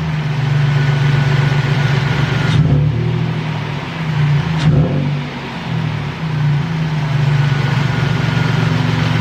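Toyota Tacoma engine running steadily with a freshly replaced accessory-belt idler pulley, the fix for its ticking/knocking noise; it runs quieter. The note dips and wavers briefly about halfway through.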